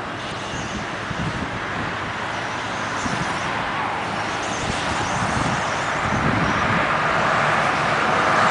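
Radio-controlled cars running, a steady motor and tyre noise that grows slowly louder toward the end.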